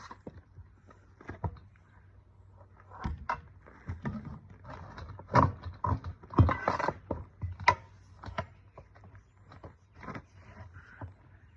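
Tire bars prying a trailer tire's bead over the wheel rim: irregular metallic clinks and knocks, with a louder cluster about five to seven seconds in, over a faint steady low hum.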